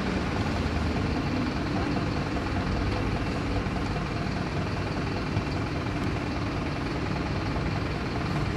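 Small excavator's diesel engine running steadily while the machine works, a low, even engine sound with no sharp knocks.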